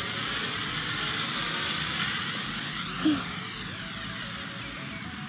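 White toy quadcopter drone in flight, its propellers and motors giving a steady high-pitched whine whose pitch wavers and glides up and down with throttle. A brief sharp sound stands out about three seconds in, after which the whine is somewhat quieter.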